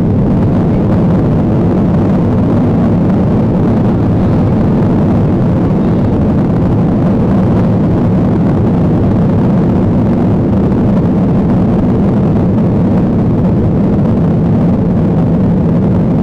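Cabin sound of an Airbus A340-300 on its landing rollout, with its CFM56 engines' thrust reversers deployed: a loud, steady, deep rumble.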